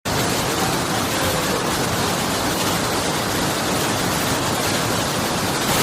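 Water rushing steadily over an irrigation weir, a constant loud hiss.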